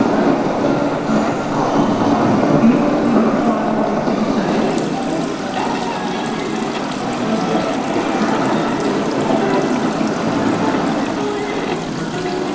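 Water showering from a sheet-metal hood and splashing steadily into a water-filled galvanised metal tub.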